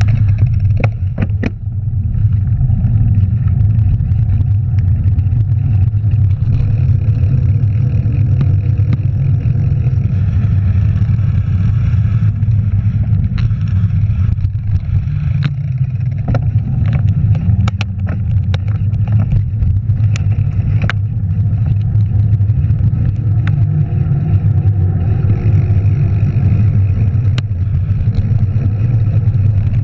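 Steady low rumble of wind buffeting the camera microphone and tyres rolling on tarmac as a mountain bike descends a paved road, with scattered sharp clicks and rattles from the bike.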